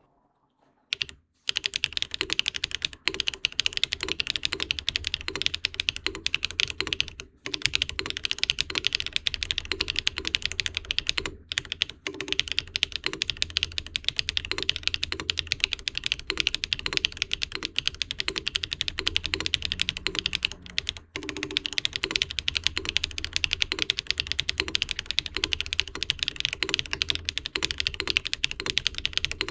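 Mechanical keyboard with HMX Coral Sea 37 g linear switches in an aluminium plate, typed on continuously in fast runs of clicky keystrokes starting about a second in, with a few short pauses.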